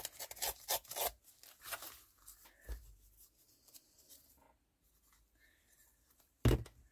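A scrap of paper being torn by hand and handled: quick crackling rustles in the first second or so, then quieter paper handling, and a louder short rustle or knock near the end.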